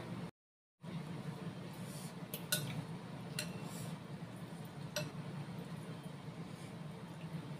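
Metal spoon and fork clinking against a bowl of meatball soup: a few separate clinks, the loudest about two and a half seconds in, over a steady low hum. The sound cuts out completely for about half a second near the start.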